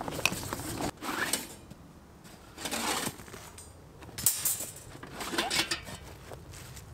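A flat-pack steel fire pit being unpacked: a fabric carry bag rustling and thin steel plates clinking and scraping as they are pulled out and laid on the ground, in several separate bursts.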